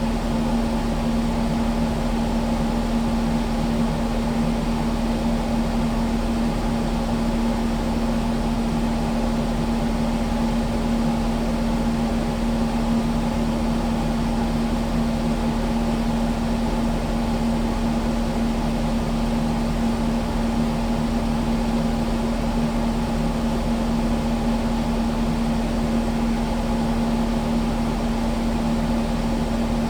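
Kubota skid steer's diesel engine running at a steady speed, a constant hum that neither rises nor falls.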